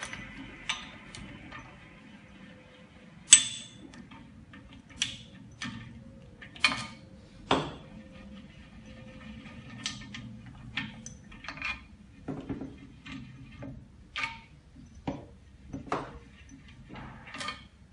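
Metal clicks and clinks of the orange clamping levers on a bubble-remover autoclave's steel door being spun loose and unscrewed, then set down on the bench: a dozen or so irregular sharp knocks, the loudest about three seconds in.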